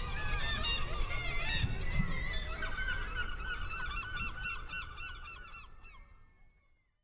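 A flock of birds calling, many short overlapping calls over a low rumble, fading out to silence near the end.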